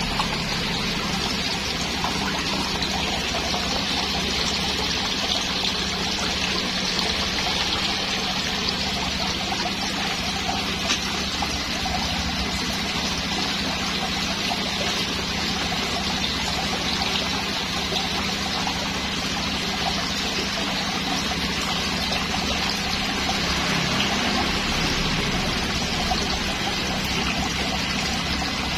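Pond waterfall pouring several streams into a koi pond, a continuous even splashing, with a steady low hum underneath.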